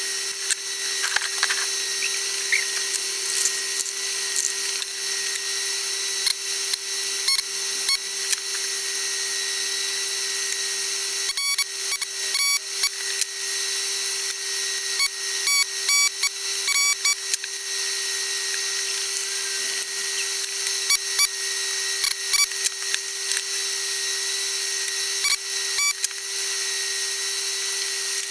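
Sped-up electronics bench work during capacitor replacement: a steady small-motor whine runs throughout, dotted with many quick clicks and taps of tools on the circuit board, coming thickest in two stretches in the middle and latter part.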